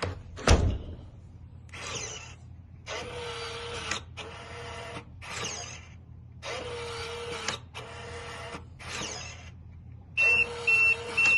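A sharp knock about half a second in, then the motor of an electronic keypad deadbolt whirring in repeated spurts of about a second each as it tries to throw the bolt, which is still not locking fully. Near the end the keypad gives a rapid string of short, high beeps.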